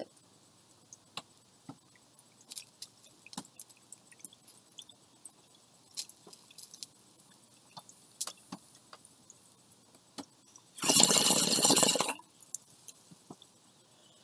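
Glass water pipe (bong) being smoked: small scattered clicks and faint bubbling while the bowl is lit and drawn on, then, about eleven seconds in, a loud rush of bubbling water lasting about a second as the chamber is pulled clear.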